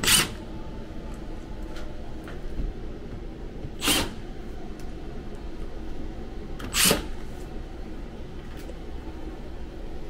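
A Milwaukee Fuel brushless cordless driver spins in three short bursts, about three seconds apart, on the sheet-metal panel screws of a Lennox air handler.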